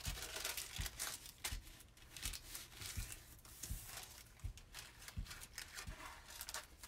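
Quiet rustling of book cloth and paper, with light knocks of boards being handled and set in place on the work table.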